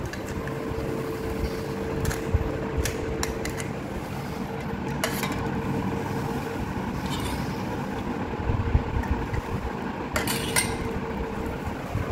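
A few light clinks of a steel spoon against steel bowls and puri shells as pani puri is filled, over a steady background hum.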